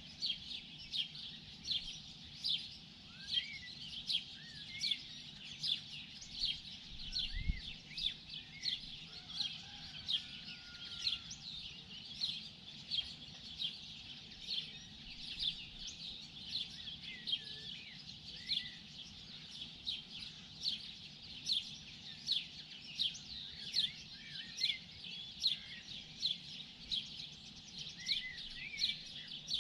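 Morning birdsong: one bird gives short, high chirps over and over, about one to two a second, while other birds call more softly behind it.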